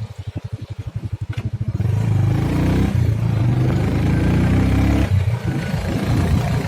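Motorcycle engine chugging in quick, even pulses at low revs, then picking up about two seconds in and running steadily under way, easing off briefly near five seconds.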